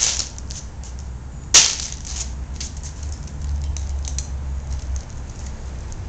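Handling noises as soft homemade ice cream is scooped out of a plastic bag into a small cup. There is one sharp click about a second and a half in, then faint light ticks, over a low steady hum.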